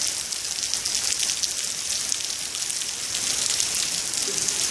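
Heavy rain pouring onto a waterlogged street and pavement: a steady, dense hiss of splashing drops, mostly high-pitched.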